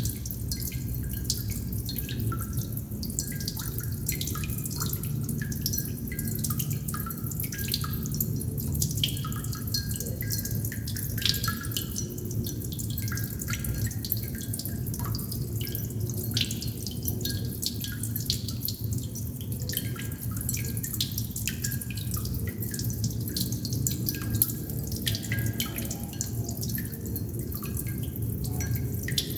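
Water droplets falling continuously and irregularly, many small drips with short plinking tones, over a steady low rumble.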